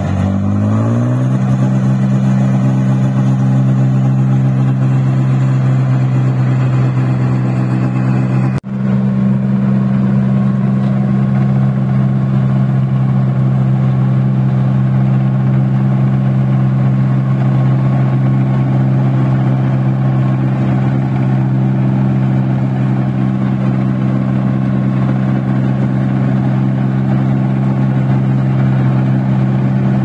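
Rice combine harvester's diesel engine running loud and steady. It revs up in the first second, then holds an even note, with a brief break about eight seconds in.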